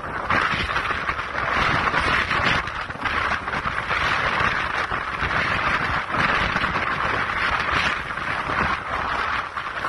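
Strong wind rushing and buffeting the microphone in gusts, with a low rumble underneath.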